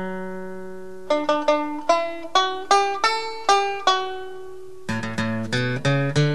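Background music: a plucked string instrument picking out a melody in single notes, each with a sharp attack that rings away. One note is left ringing for about a second at the start, then the notes come at about three a second, with a quicker cluster of lower notes near the end.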